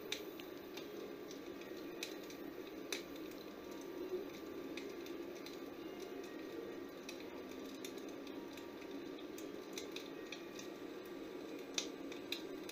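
Fireplace tavern ambience track played through computer speakers: scattered crackles and pops of a log fire over a low, steady murmur.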